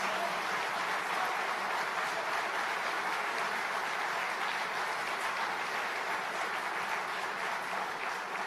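A large seated audience applauding: steady, dense clapping that holds an even level throughout.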